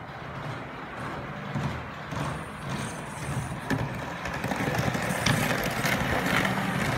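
HO-scale model trains running on the track: a steady rumble and clatter of metal wheels on the rails with a low motor hum and a few sharp clicks. It grows louder about five seconds in as a second train passes close by.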